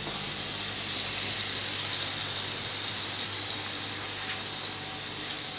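Steady kitchen hiss, like food sizzling on the stove or water running, with a low steady hum beneath.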